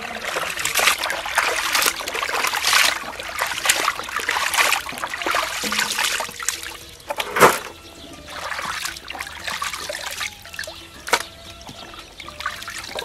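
Water splashing and trickling in a plastic basin as skinned bullfrogs are washed by hand, lifted out dripping and plunged back, with one louder splash about halfway through.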